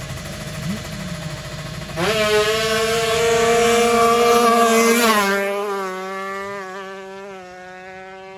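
Tuned 155 cc sport-class drag motorcycles idling, then launching about two seconds in with a sudden high-pitched engine scream at full throttle. The note dips slightly about five seconds in and fades as the bikes run away down the strip.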